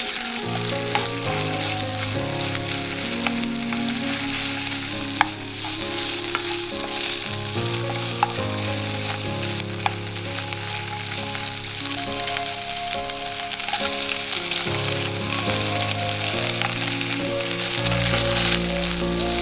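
Food sizzling in a hot frying pan as it is stir-fried, with a few clicks of a utensil against the pan. Soft background music plays under it.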